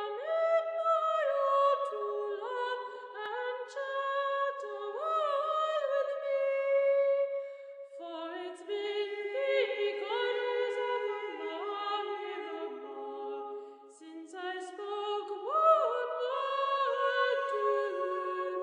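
Background music: a cappella singing, several voices in harmony with notes that slide up into place.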